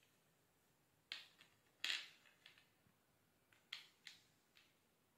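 Light taps and clicks of alphabet puzzle pieces being picked up and set into a wooden puzzle board: about seven short taps, the loudest about two seconds in.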